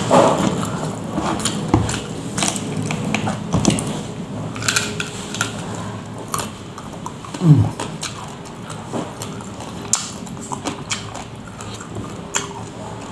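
Close-up eating sounds of a man chewing grilled catfish and rice, with wet lip-smacking and many sharp mouth clicks. A brief low hum that falls in pitch comes about halfway through.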